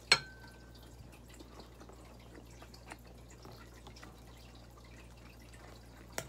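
Eating sounds: faint mouth clicks and small ticks while fried tilapia is picked apart by hand. These open with a sharp clink that rings briefly, and a second, smaller click comes just before the end.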